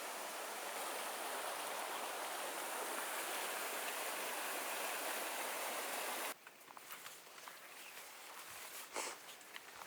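Steady rush of flowing creek water, which cuts off abruptly about six seconds in, leaving a quieter outdoor background with a few faint clicks.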